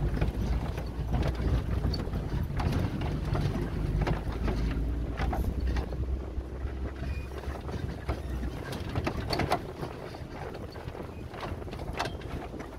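Maruti Suzuki Gypsy driving off-road over rough ground: a low rumble with wind on the microphone and frequent knocks and rattles. The rumble drops away about nine seconds in.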